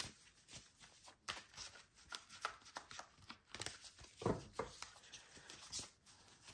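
A deck of tarot cards being shuffled by hand: a run of short papery riffles and taps, the loudest about four seconds in.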